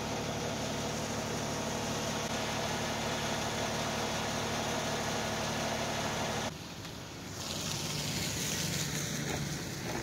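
Wood-Mizer LT50 Wide sawmill's diesel engine idling steadily, run under its cover to thaw a frozen lube system. It drops quieter about six and a half seconds in, with a steady hiss over it near the end.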